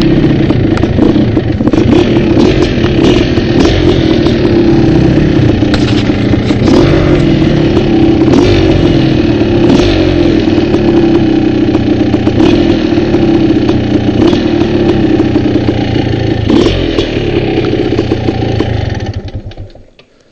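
Dirt bike engine heard close up from the rider's seat, running continuously along a rough trail and shifting in pitch with the throttle, with scattered clatters and knocks from the bike and rocks. Near the end the engine sound falls away to quiet.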